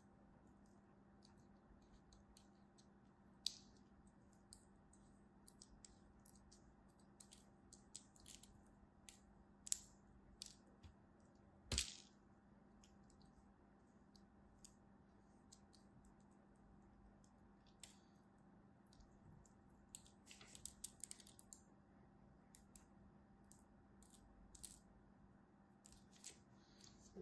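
Packed kinetic sand being sliced and broken apart with a utility knife blade: scattered soft crunching and crackling ticks as the sand crumbles, with one sharper knock just under halfway through.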